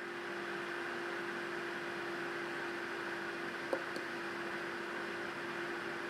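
Small 12-volt cooling fan on a Peltier module's heatsink running steadily: an even whir with a constant hum. One light click about halfway through.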